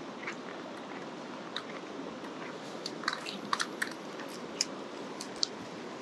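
Steady rushing of a mountain stream, with a scatter of short sharp clicks and crunches that grows busier about halfway through.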